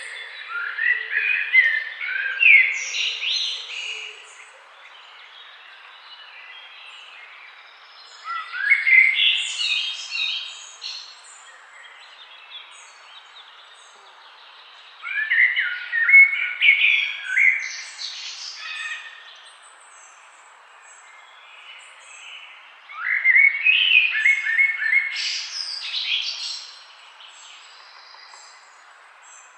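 A songbird singing in a forest: four separate phrases of quick, varied chirps and short whistled notes, each lasting a few seconds, with pauses of about four seconds between them. A steady faint hiss runs underneath.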